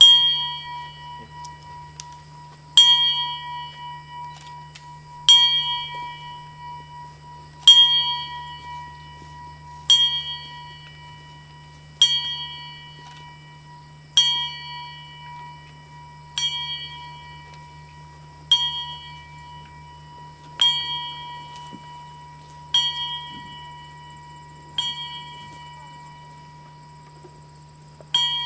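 Small brass bell in a wooden stand, struck by hand and tolled slowly as a memorial. It rings thirteen times, about every two seconds, and each stroke rings on and fades before the next. There is a longer pause before the last stroke near the end.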